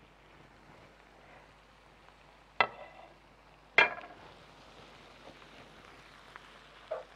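Two sharp clinks about a second apart as a ceramic plate is set down on the countertop, each with a short ring, then a softer knock near the end over a faint steady hiss.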